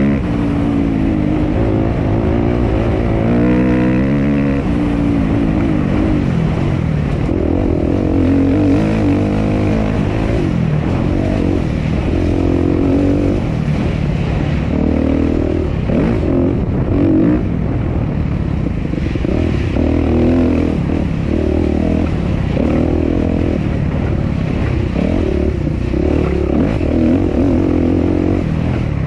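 Suzuki RM-Z250 four-stroke single-cylinder dirt bike engine under racing load, its pitch rising and falling again and again as the throttle is opened and closed.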